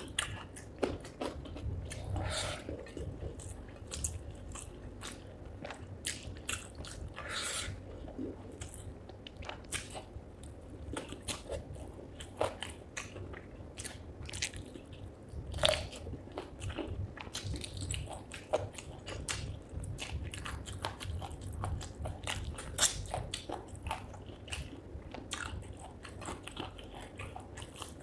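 Close-miked eating of spicy chicken feet curry with rice: irregular biting, crunching and wet chewing clicks.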